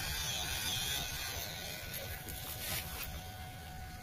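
MN99S 1/12-scale RC crawler driving over riverbank gravel: the small brushed electric motor's faint steady whine and its tyres on the stones, over a steady hiss and a fluttering low rumble.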